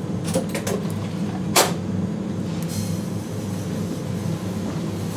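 Steady low hum of a restaurant kitchen, with a few light clicks and knocks of plating work over it, the sharpest about a second and a half in.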